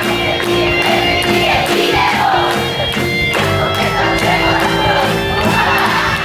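Live band playing an instrumental passage of a song with a steady beat, with crowd voices over it.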